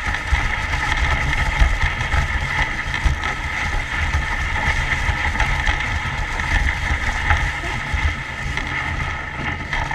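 Continuous rumbling noise with irregular low buffeting, like wind on the microphone of a camera carried on the move, over a steady hiss.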